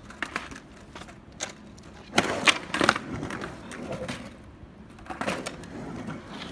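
Skateboard on asphalt: wheels rolling over the rough surface, with a few sharp clacks of the board, the loudest three coming about two to three seconds in.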